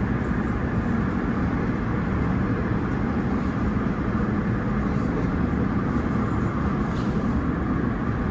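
Steady, loud running noise of a Class 345 Elizabeth line train moving through a tunnel, heard inside the carriage by the doors: a continuous rumble of wheels on rail with a few faint ticks.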